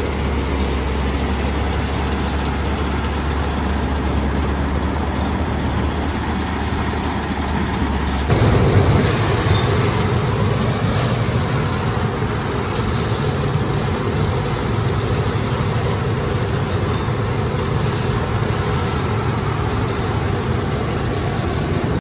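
Preet 987 combine harvester's diesel engine and machinery running steadily with a low drone. About eight seconds in, the sound changes abruptly to a closer, slightly louder engine and machinery noise.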